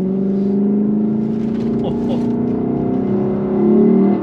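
Lexus LC 500's naturally aspirated 5-litre V8 with its stock exhaust, heard from inside the cabin. It runs at a steady pitch under way, then rises as the engine is pushed harder near the end.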